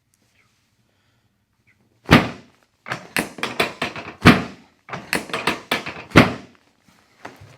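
Chiropractic drop table: the pelvic drop section is thrust down and falls with a loud thunk three times, about two seconds apart. Between the drops come runs of quicker, lighter clicks and knocks.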